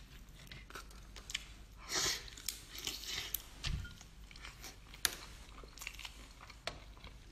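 Cooked lobster shell being cracked and peeled by hand, with chewing: scattered sharp cracks and crunches, the sharpest about five seconds in.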